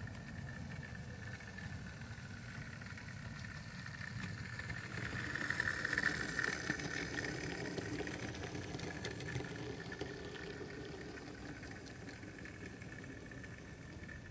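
Model pannier tank locomotive running along the track with a steady electric motor whine, wheel rumble and light clicks. It is loudest as it passes about six seconds in, then fades as it draws away.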